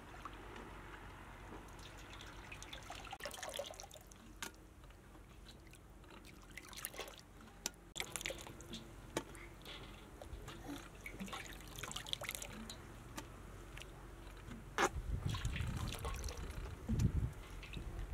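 Water sloshing and dripping as raw meat is washed by hand in a metal basin, with scattered light clicks and knocks of the pieces and pot. A low rumble comes in during the last few seconds.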